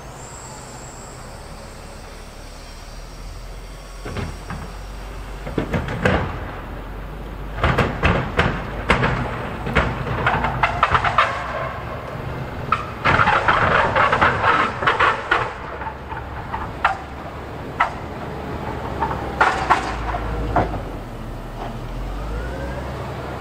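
Wheel loader engine running steadily under a snowplow. From about four seconds in come repeated bursts of scraping and clattering, most of them at around 8–11 seconds and 13–15 seconds, with a short rising whine near the end.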